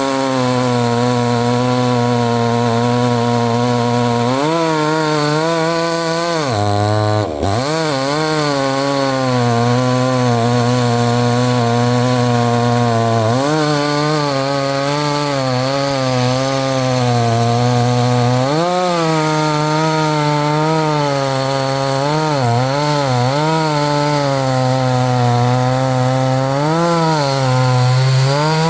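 68 cc two-stroke chainsaw cutting wood at full throttle, its engine pitch repeatedly sagging under load and recovering, with one brief sharp dip about seven seconds in.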